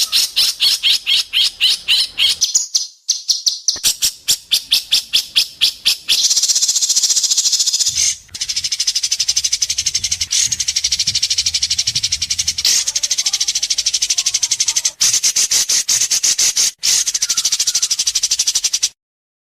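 White-rumped shama (murai batu) giving a sharp, rapid besetan rattle. It starts as a fast series of high chips, about six a second, then after about six seconds runs together into a continuous high rattling buzz, broken by a few brief gaps, and cuts off abruptly near the end.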